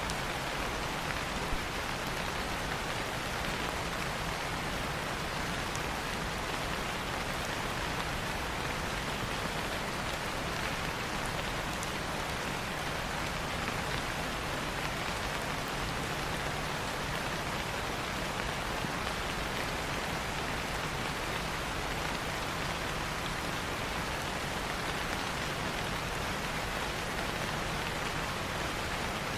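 Steady rain falling: an even, unbroken hiss of rain, with a few faint clicks.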